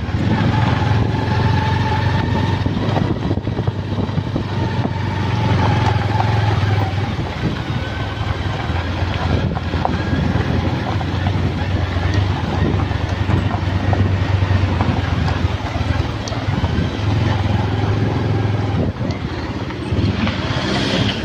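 Motorcycle engine running steadily on the move, a low drone under a rushing noise of wind and road.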